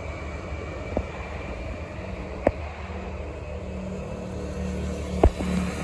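Steady hum of road traffic on a freeway, with a car passing and a low hum that grows louder near the end. Three sharp clicks break through at about one, two and a half and five seconds in.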